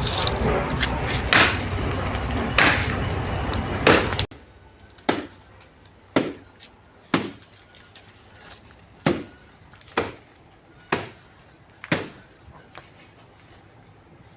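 Blade blows chopping into a banana plant, sharp separate strikes about a second apart. Over the first four seconds they sit under a steady rushing noise that stops abruptly.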